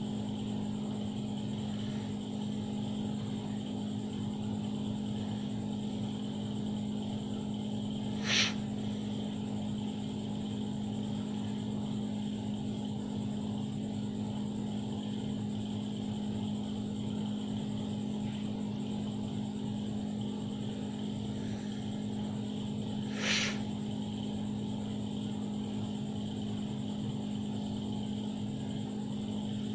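A steady mechanical hum, with two short sharp clicks: one about eight seconds in and another about fifteen seconds later.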